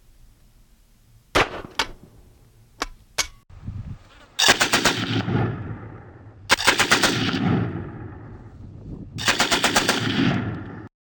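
Four shots from a Streetsweeper 12-gauge drum-fed shotgun, in two quick pairs. Then come three bursts of automatic machine-gun fire, each a little over a second long with a trailing echo. The last one cuts off suddenly near the end.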